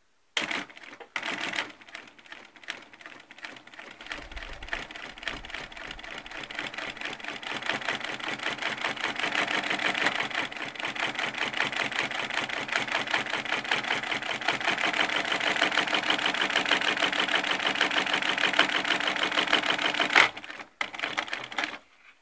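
Dürkopp Adler 268-2 twin-needle post-bed industrial sewing machine stitching a seam: a fast, even, rhythmic clatter. It begins with a couple of short bursts, grows louder over the first half, and stops suddenly about 20 seconds in, followed by a few short bursts of stitches.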